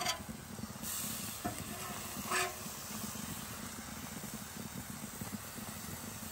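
Food sizzling on a Blackstone flat-top griddle, with a metal spatula scraping across the hot griddle a few times in the first few seconds.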